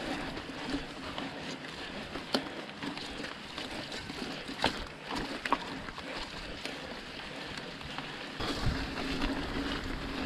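Orbea Oiz mountain bike riding over a waterlogged, muddy trail: steady wet tyre noise with scattered sharp knocks and rattles from the bike. Wind noise on the camera's microphone comes in near the end.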